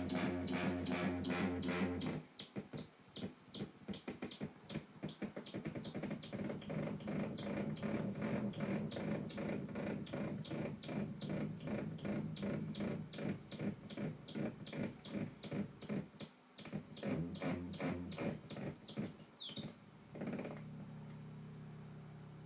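Modular synthesizer tone from sine oscillators (MOTM-300 VCO and MOTM-320) run through a MOTM-510 wave warper, its offset X modulated by a MOTM-320 saw wave. About two seconds in the steady tone breaks into rapid, even pulsing, several pulses a second; near the end a high sweep dips down and back up, and the sound settles into a steady low tone that fades.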